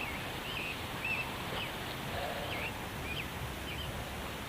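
Birds chirping: short, scattered whistled calls over a steady outdoor background noise.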